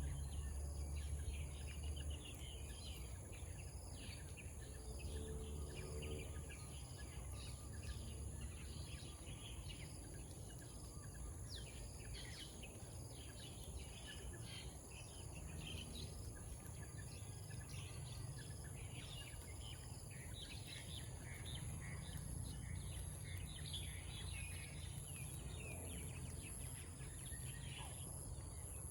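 Birds chirping over a steady high-pitched insect drone, with a low rumble underneath.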